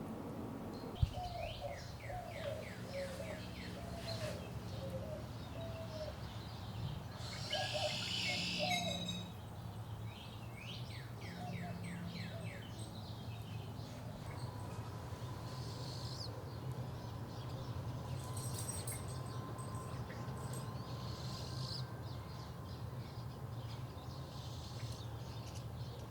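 Several back-yard birds calling and singing: runs of quick falling high notes, and low wavering notes in the first half. A sharp click comes about a second in, and a louder, noisier burst of calls comes around eight seconds.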